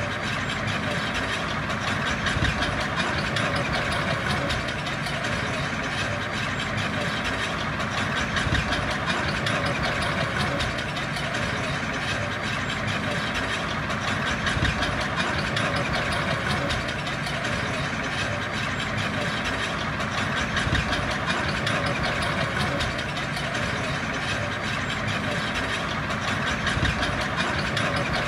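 Diesel engine of earthmoving machinery running steadily, its level swelling a little about every six seconds.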